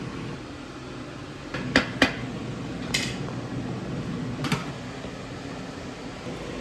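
Metal cookware and utensils clinking: two sharp clinks about two seconds in, a short scrape a second later, and another clink near the end, over a steady low hum.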